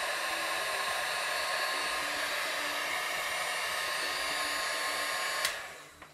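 Top Craft heat gun blowing hot air, a steady rush with a whine from its fan motor, shrinking heat-shrink tubing over soldered wire joints. About five and a half seconds in it is switched off with a click and the blower winds down.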